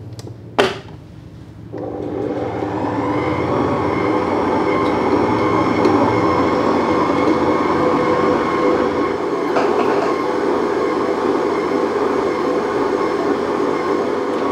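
A click as the tilt head of a Mito MX100 stand mixer is lowered, then about two seconds in its motor starts and settles into a steady hum as the dough hook kneads a small lump of bread dough with cocoa powder.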